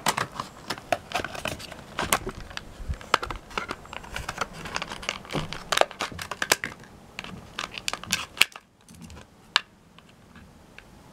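Scissors snipping through a toy blister pack, the cardboard backing and clear plastic bubble crackling and crinkling in a string of sharp clicks. The cutting thins out about eight seconds in.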